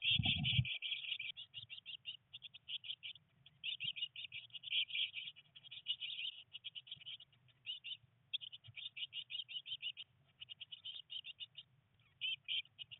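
Blue tit nestlings begging in the nest box: rapid runs of high, trilling chirps in bursts, broken by short gaps, with a scuffing thump in the first half second.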